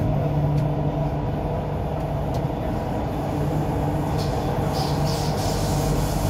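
Inside the car of an MTR Q-Train metro train on the move: a steady running rumble with a constant low hum, and a few faint ticks.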